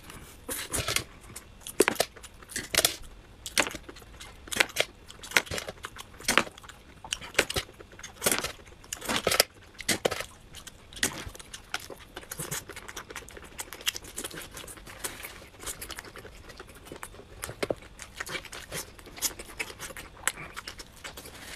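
Wet chewing, slurping and lip smacking of someone eating sauced grilled squid, with the rubbery flesh torn apart by hand. Sharp irregular smacks come several times a second, busiest in the first half and sparser later.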